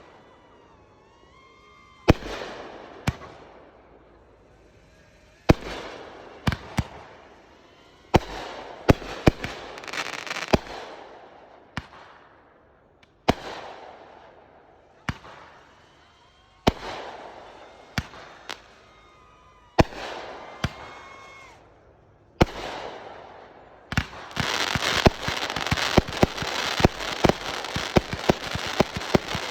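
Consumer fireworks going off: a sharp bang every one to three seconds, many followed by a second report and a fading crackle. Near the end, a dense run of rapid pops over continuous crackling.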